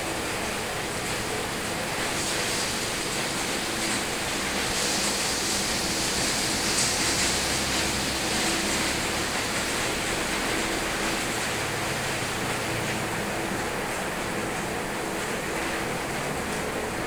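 Steady rain falling: an even hiss that swells a little in the middle.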